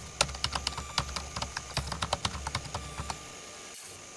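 Rapid, irregular keyboard-typing clicks, several a second, over a faint low hum, stopping about three seconds in.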